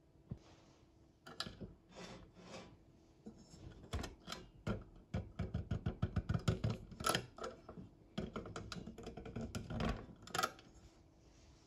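Dry clicking and light metal rattling, at its quickest in the middle at about five clicks a second, as the whistle of a Mamod TE1A toy steam engine is twisted back and forth by hand. The whistle turns loosely in its bush, a fault that needs fixing.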